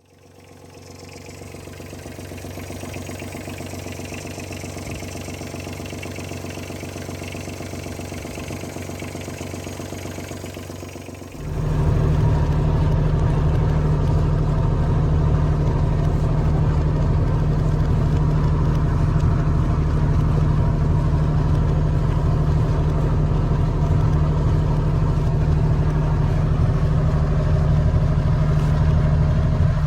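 Ranger Tug R-21EC's engine running steadily. About eleven seconds in it becomes abruptly much louder and deeper, then runs on evenly at that level.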